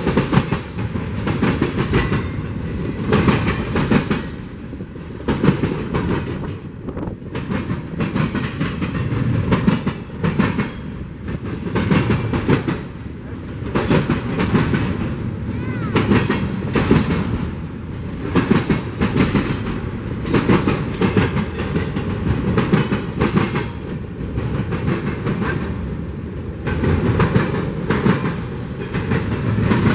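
Freight train rolling by, its wheels clattering over the rail joints in a repeating clickety-clack over a steady rumble.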